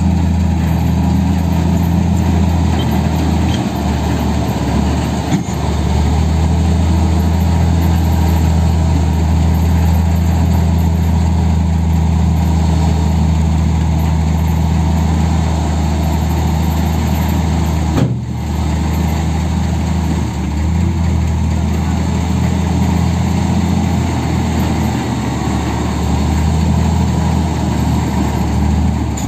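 Large diesel dump truck engine running steadily at a constant speed, a loud low hum with a short break about eighteen seconds in.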